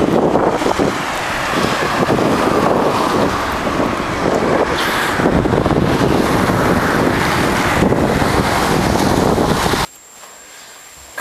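Wind buffeting the microphone of a camera carried on a moving bicycle, with road traffic mixed in. About ten seconds in it cuts off suddenly to quiet room tone with a faint steady high whine.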